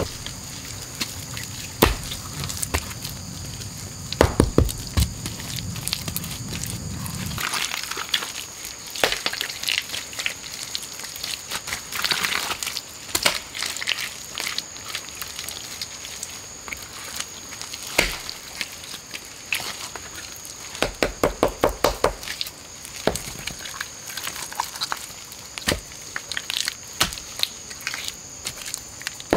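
Wet mud slapped, squished and pressed down by hand onto a stone base, in short irregular bursts, with a quick run of squelches past the middle. A few knocks of stone on stone come in the first seconds.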